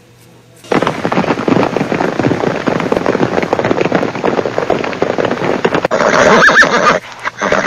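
Recorded horse sounds: a loud, dense run of hoofbeats and scuffling that starts about a second in and lasts some six seconds, with a short high squeal near the end.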